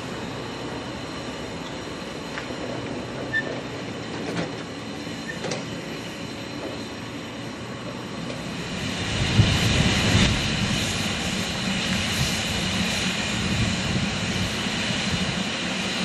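Steam locomotive standing in steam: a steady hiss and low rumble, with a few light metallic clicks in the first half, then a louder rumble building from about nine seconds in.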